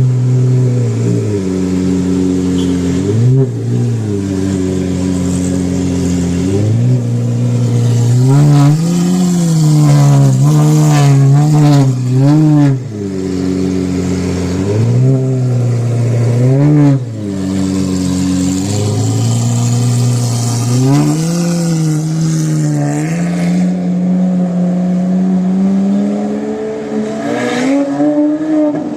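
Lamborghini engine running loud, idling and revved up again and again, each rev climbing and falling back to idle, with a run of quick blips in a row about ten seconds in.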